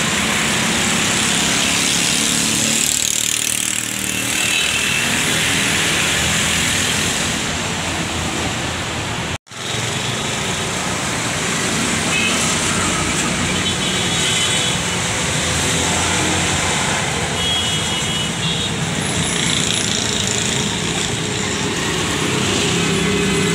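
Busy road traffic, with motorcycles, auto-rickshaws and cars passing in a steady stream of engine and tyre noise. The sound breaks off for an instant about nine seconds in.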